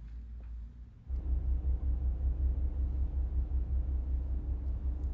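A low, steady car-interior rumble with a faint hum above it, as heard inside the cabin of a car with its engine running. It cuts in suddenly about a second in, after a quiet room with a few faint clicks.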